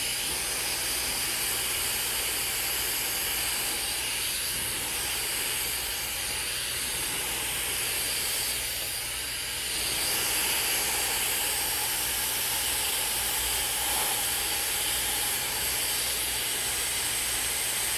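Dyson hair dryer with a concentrator nozzle blowing steadily on its cold shot setting, a plain rush of air, to cool and set a round-brushed section of hair. It gets a little louder about halfway through.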